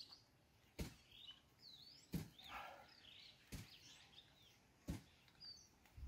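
Faint plastic clicks, four of them about a second and a half apart, as an HDPE compression fitting's nut is twisted tight onto the pipe by hand. Birds chirp faintly between them.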